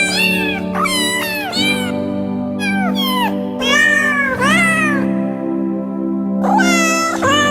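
Domestic cat giving loud vocalized yawns: a string of short meow-like calls, each sliding up and down in pitch. The calls pause for about a second and a half near the end, then two more follow. Background music with steady sustained notes runs underneath.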